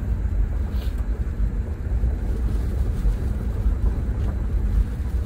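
Steady low rumble of a Mitsubishi Triton diesel pickup heard from inside the cabin while driving: engine and tyre noise.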